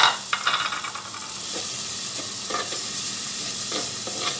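Sliced onions sizzling in hot mustard oil in a clay pot, with a steady hiss, while a wooden spatula scrapes and knocks against the pot in a few separate stirring strokes, the loudest right at the start.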